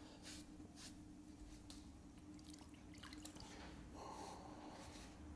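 Faint water drips and small wet ticks from a sponge over a potter's wheel splash pan, over a steady faint hum.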